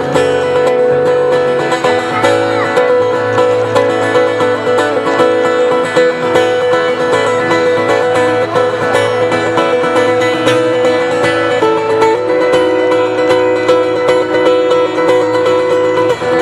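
Instrumental passage of a live acoustic song: plucked string instruments playing picked and strummed chords, with no singing.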